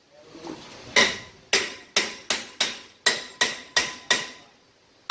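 Hammer blows on metal during a car brake job: about nine sharp strikes, starting about a second in, at roughly three a second, each ringing briefly.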